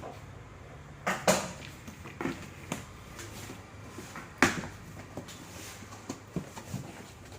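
A few sharp clicks and knocks of objects being handled, the loudest about a second in and again about four and a half seconds in, over a low steady hum.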